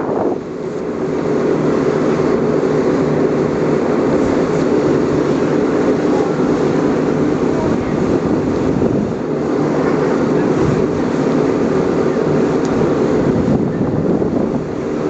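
Speedboat engines running steadily at full speed, a constant drone, with the rush of spray and wind as the hull runs through the chop.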